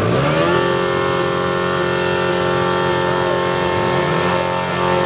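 Pit bike engines running in a crowded starting gate; within the first half second one revs up and then holds at high, steady revs.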